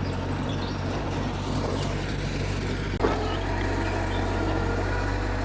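Mitsubishi G2 bulldozer's diesel engine running steadily, with a brief break and a sharp click about three seconds in.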